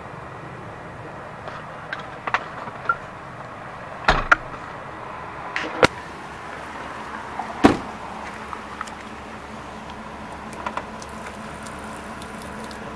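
A handful of short sharp knocks and clicks from handling a truck's doors and fittings, the loudest two about four and eight seconds in, over a steady background hum.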